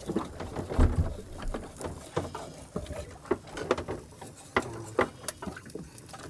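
Wide kitchen knife scraping and tapping on a plastic cutting board as a fish is filleted and skinned: irregular short clicks and scrapes, with a low thump about a second in.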